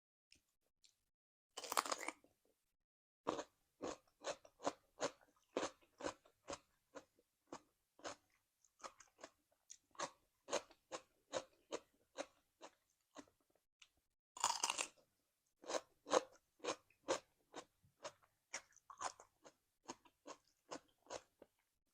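Close-up chewing of crisp food, cucumber salad with raw vegetables: two loud crunching bites, about two seconds in and again about halfway through, each followed by steady crunchy chewing at about two chews a second.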